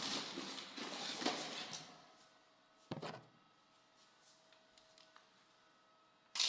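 Handling noises from hands working with doorbell mounting parts: about two seconds of rustling, a sharp knock about three seconds in and another near the end, with quiet room tone between.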